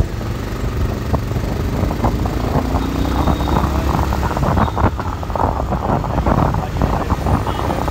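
A motorcycle riding along a road: a steady engine and road rumble, with wind buffeting the microphone that gets rougher and crackly about halfway through.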